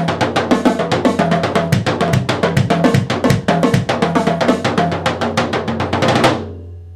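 Drum kit with 14- and 16-inch Remo roto toms being played in a fast run of strikes, many per second, dying away near the end.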